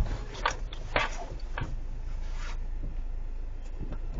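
Low engine and road rumble inside a car's cabin as it creeps forward, with a few light clicks in the first second and a half and a hiss that stops about two and a half seconds in.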